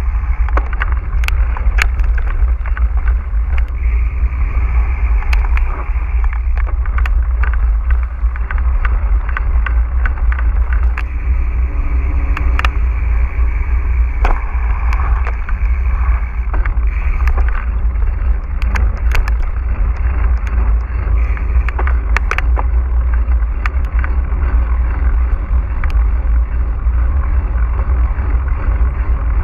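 Mountain bike ridden over rough ground: steady heavy wind rumble on the action camera's microphone, with frequent sharp clicks and rattles from the bike and its mount.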